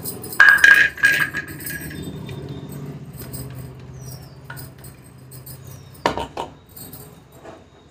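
A mixer-grinder jar is knocked and tapped against the rim of a stainless-steel bowl to empty out coarsely ground sesame seeds. It gives a couple of loud ringing clinks about half a second in, then lighter taps and rustling, and one more sharp knock about six seconds in.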